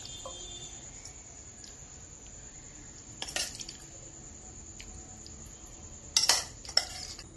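Metal spoon clinking and scraping against a steel pan and a glass serving bowl as thick vegetable curry is spooned out: a clink about three seconds in and a few more near the end.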